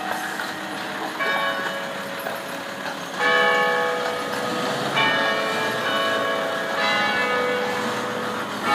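Church bells ringing. A new strike comes about every two seconds, and each rings on with several steady tones.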